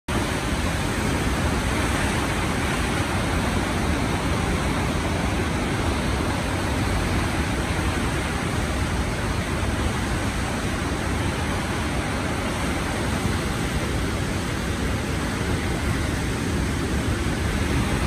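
Congo River whitewater rapids rushing: a loud, steady noise of churning, breaking water that never lets up.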